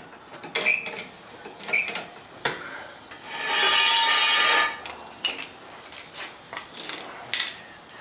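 Scattered metal clicks and clanks from a floor jack and its handle, with a loud metallic scrape lasting about a second and a half around the middle as a steel jack stand is dragged out across the concrete floor.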